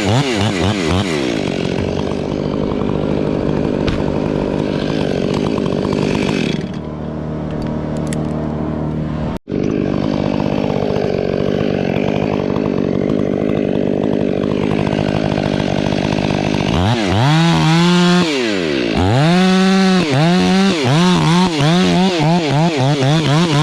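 Chainsaw running steadily under load, cutting wood, with a sudden break for an instant about nine seconds in. Near the end the engine revs up and down over and over.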